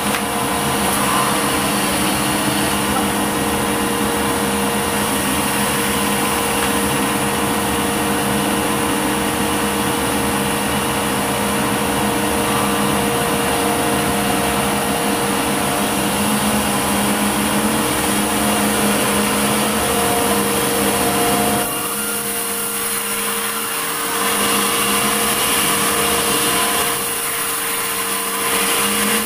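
Sawmill saw running steadily while cutting a large medang log, a loud machine whine with several steady tones. It eases off in level twice in the last third.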